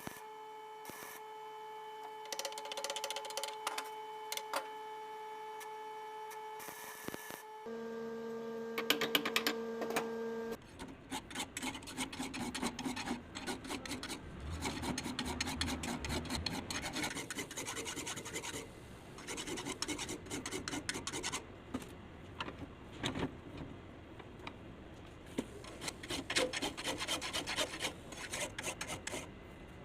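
A steady machine hum for the first ten seconds or so, changing to a lower pitch about eight seconds in, then hand filing of metal: repeated rasping file strokes that run on in uneven bursts.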